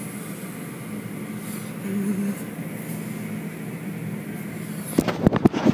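Automatic car wash machinery running with a steady hum and low tone, heard from inside the car. About five seconds in, a rapid flurry of loud slaps begins as the hanging cloth wash strips hit the car.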